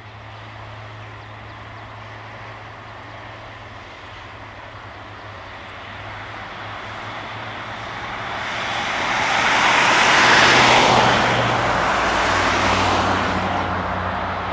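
Ex-Soviet tram car passing by: the rumble of wheels on rail rises to its loudest about two-thirds of the way through, then eases off, over a steady low hum.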